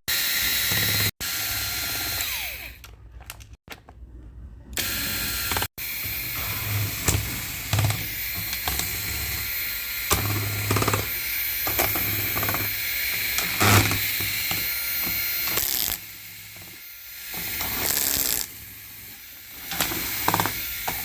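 A small power drill or driver runs in spells, with clicks and knocks from handling parts. The sound breaks off abruptly several times early on.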